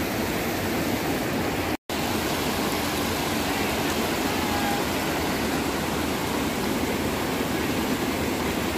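Creek water rushing over rocky rapids: a steady, full hiss. It cuts out for an instant about two seconds in, then carries on unchanged.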